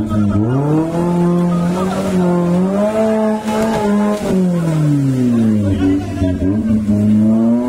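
Off-road 4x4 jeep's engine revving hard under load as the jeep claws through mud. Its pitch rises just after the start, climbs again around three seconds, drops away at about four and a half seconds, and rises again near the end.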